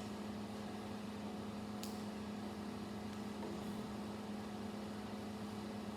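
Steady low hum of room tone, with one faint click about two seconds in as LEGO plastic pieces are handled.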